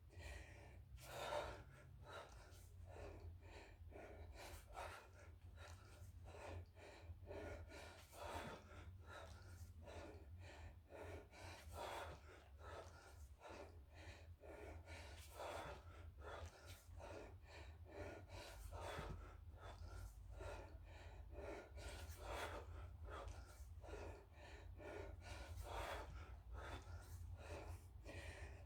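A man breathing hard with short, forceful breaths about once a second, the exertion of repeated kettlebell lifts, over a steady low hum.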